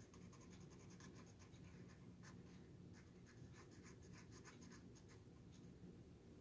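Felt-tip marker drawing on a wooden spoon: faint, quick, irregular scratchy strokes of the tip on the wood.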